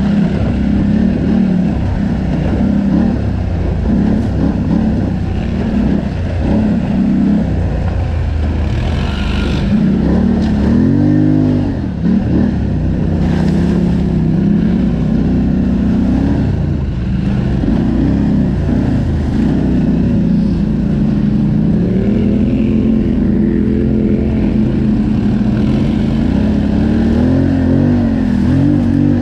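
ATV engine running under throttle on a trail ride, its pitch rising and falling as the rider works the throttle, with a sharp rev about a third of the way in.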